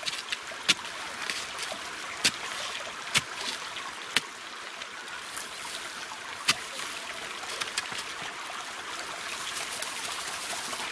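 Shallow stream running over stones, a steady rushing trickle, with several sharp knocks in the first seven seconds as a wooden digging stick strikes stones while wild garlic is dug up.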